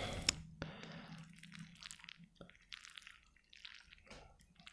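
Chopsticks stirring and lifting sauced instant noodles in a bowl: soft, wet squishes and small clicks, with a louder burst at the very start.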